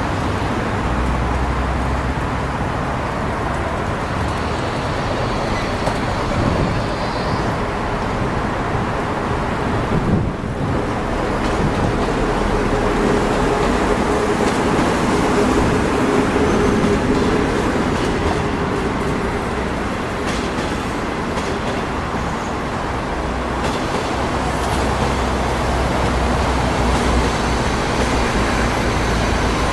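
HXD1B electric locomotive hauling 25B passenger coaches past while pulling out of a station: a steady rumble of wheels on rail, with a faint hum from the locomotive as it goes by about halfway through, then the coaches rolling past.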